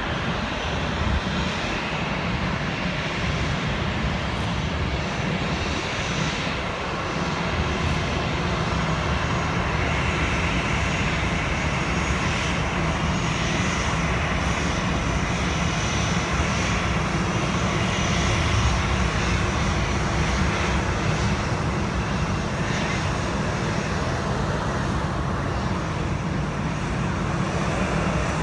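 Jet airliner engines running: a loud, steady rush with a faint high whine above it, continuing without a break.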